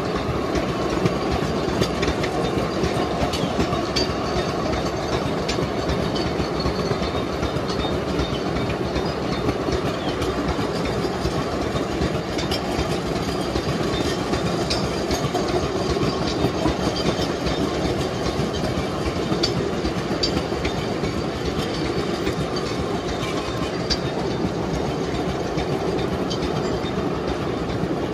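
A long rake of loaded sugarcane bins on a two-foot-gauge cane tramway rolling past close by. The steel wheels keep up a steady rumble and clatter on the rails, with many scattered clicks.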